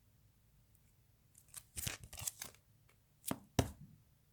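Comic books being handled: a few short rustles and taps, then two sharp clicks about three seconds in.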